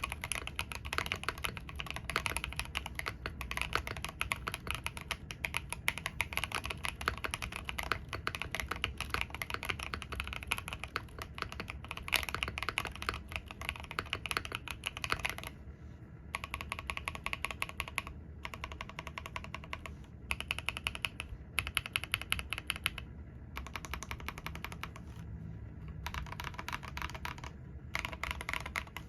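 Mechanical keyboard with Aifie SA-profile Shimmer Green keycaps on Fantasy Virus switches being typed on: fast, continuous keystrokes for about the first half, then short bursts of typing broken by brief pauses.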